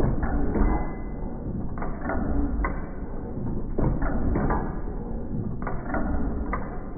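1909 Domestic 1 hp hit-and-miss engine running, a low rumble broken by irregular knocks and clicks. As a hit-and-miss engine it fires only now and then, when its governor lets the speed drop, and coasts on its flywheels in between.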